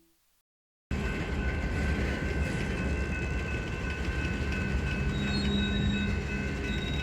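After a moment of silence, a steady mechanical rumble starts about a second in. It carries a few high, steady whining tones and does not change until a louder burst just after.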